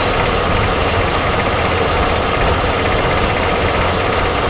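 A 2004 Chevy Silverado's 5.3-litre V8 idling and running rough. The computer is pulling fuel, with short-term fuel trim near minus 20 percent, because the bank one upstream oxygen sensor reads full rich; the technician takes this for an oxygen sensor problem behind the lean and misfire codes.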